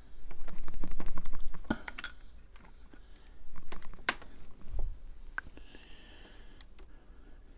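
Hands working the small parts of a disassembled Damned Designs Djinn folding knife: rubbing and handling noise, then a run of small clicks, with sharp clicks about two and four seconds in.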